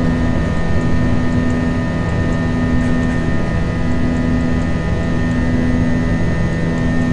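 Airbus A321 cabin noise during the climb after takeoff: the steady rush of its engines and airflow heard from inside the cabin, with a low hum that swells and fades a little under once a second.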